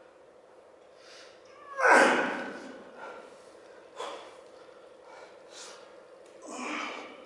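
A man's heavy, forceful exhales while lifting dumbbells: a loud one about two seconds in and another near the end, with a short sharp knock about four seconds in.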